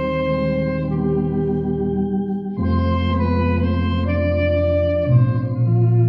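Tokay electronic organ and Moresk clarinet playing a hymn together: held organ chords over a deep bass with the clarinet carrying the melody. The chord and bass change about two and a half seconds in and again near the end.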